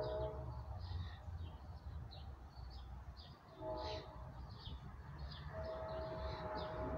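Far-off train horn sounding a chord in three blasts: one trailing off about half a second in, a short one near the middle, and a longer one in the last second and a half. Songbirds chirp throughout.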